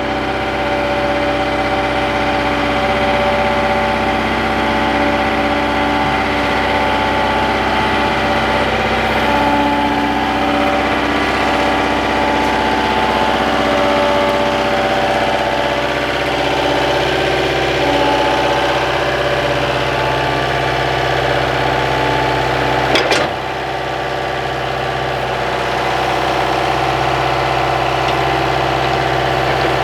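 Skid steer engine running steadily at idle, with a single sharp knock about three-quarters of the way through, after which the engine note dips briefly.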